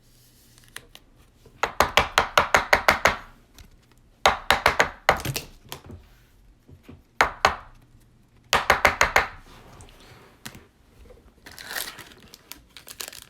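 Handling of trading cards and their pack wrappers: several bursts of rapid crisp clicks and crinkles, with short pauses between them.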